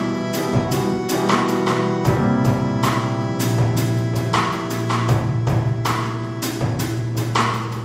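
Live band music: a drum kit keeps a steady beat with regular cymbal strokes under a bass line and long held instrument notes.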